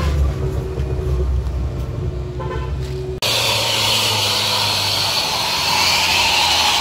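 Heavy diesel truck engine running with a deep, low rumble. About three seconds in it cuts off suddenly and a steady high hiss takes over.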